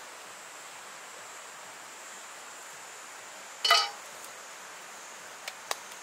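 Metal tongs set down on a tabletop grill plate with one sharp clatter that rings briefly, about halfway through, followed by a couple of light clicks near the end, over a steady outdoor hiss.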